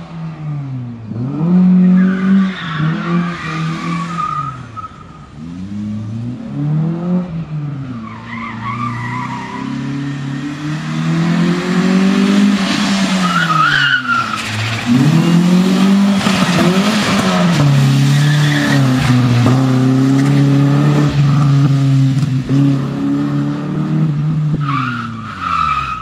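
FSO Polonez with a swapped 2.0 BMW engine drifting, the engine revving up and falling back again and again, with the tyres squealing several times.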